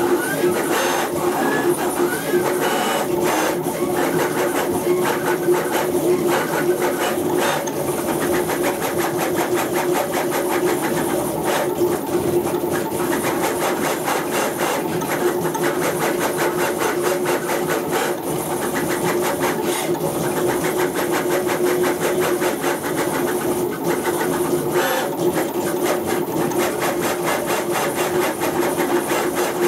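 Stepper motors of a CNC router running as a 3D printer, moving the axes continuously: a steady whine full of rapid ticks, with a few short chirps of changing pitch near the start.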